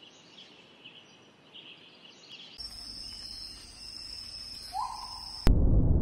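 Faint bird chirps over quiet outdoor ambience. About two and a half seconds in, a steady high-pitched insect drone takes over, with a short rising call near the end. A loud low rumble cuts in abruptly just before the end.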